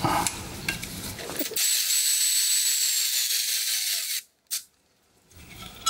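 Power tool run for about two and a half seconds, backing out the long adjustment bolt on a generator bracket; its whine eases down as it stops. Before it come a few light metallic clicks of the tool going onto the bolt.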